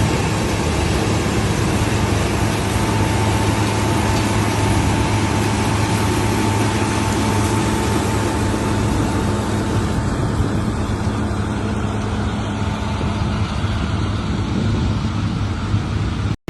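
Heavy farm machine's engine running steadily with a low drone, a faint whine over it for a few seconds early on.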